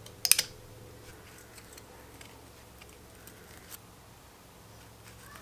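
Wilko secateurs snipping at a Chinese elm branch stub to pare a pruning cut clean: a quick, sharp double snip about a third of a second in, then a few faint clicks of the blades.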